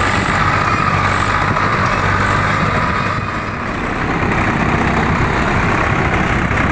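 Swaraj tractor's three-cylinder diesel engine running steadily, working through sand, with a brief dip in loudness about three seconds in.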